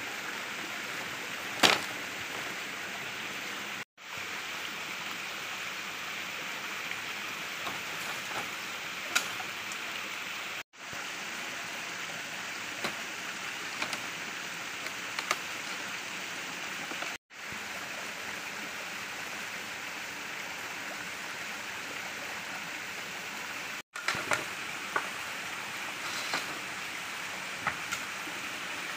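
A stream flowing steadily, with scattered sharp knocks and clicks of split bamboo poles being handled, the loudest one about two seconds in. The sound drops out for an instant about every six or seven seconds.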